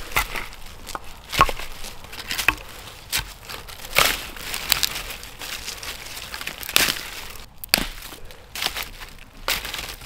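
Dry twigs and small sticks being handled and laid into a fire lay on leaf litter and snow: irregular sharp snaps and clicks over a crackling rustle.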